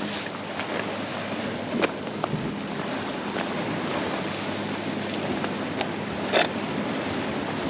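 Sea waves washing against a rocky shore with wind buffeting the microphone, broken by a few short sharp knocks, the loudest about two seconds in and again past six seconds.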